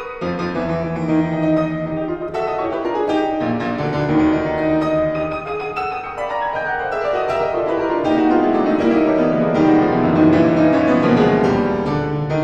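Grand piano played solo, with quick runs of many notes, growing louder in the second half.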